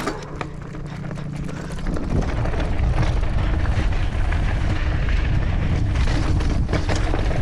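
Wind rushing over the camera microphone and tyres on loose dirt as a mountain bike picks up speed down a trail, growing louder over the first couple of seconds, with scattered rattles and knocks from the bike over bumps.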